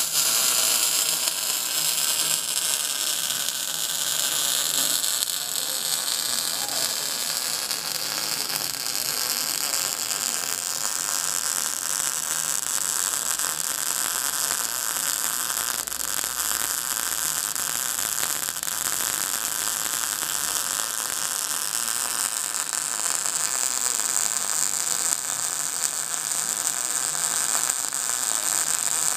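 Electric arc welding: a steady arc hiss and crackle.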